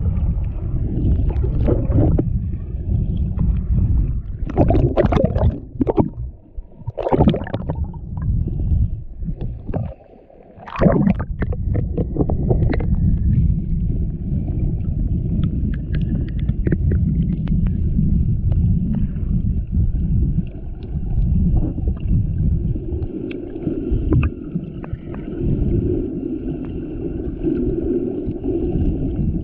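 Muffled rumbling and sloshing of water against an action camera's waterproof housing while snorkeling, with several splashes in the first half.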